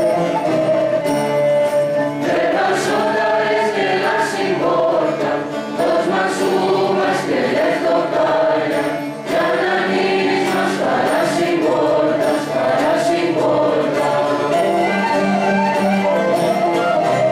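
Mixed youth choir singing a Pontic Greek Christmas carol (kalanda) in unison, accompanied by a small traditional folk ensemble.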